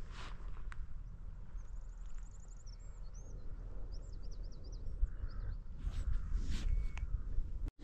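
Wind rumbling on the microphone, with birds calling: a quick, high trill followed by a run of short chirps, and a few short harsh calls later on. The sound drops out for a moment near the end.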